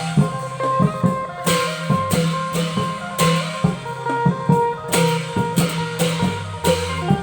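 Thai klong yao long-drum ensemble playing a lively rhythm, with steady drum strokes, cymbal washes and a melody over the top.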